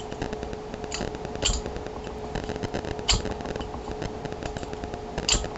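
Steel lock picks working a disc padlock: a rapid run of small clicks and scrapes as a bent half-diamond pick rakes the discs and a tension wrench is tapped, with a few sharper clicks, about four, spread through. A steady faint hum runs underneath.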